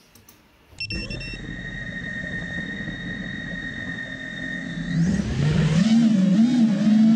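Small self-built FPV quadcopter's brushless motors and propellers starting up about a second in, with a steady high whine while idling. From about five seconds in it gets louder and the whine rises and wavers up and down with the throttle as the quad starts flying.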